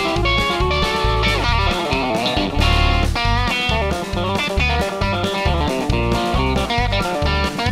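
Suhr T-style electric guitar playing a fast chicken pickin' country lead, with short snapped notes and string bends, over a steady low bass-and-drum pulse.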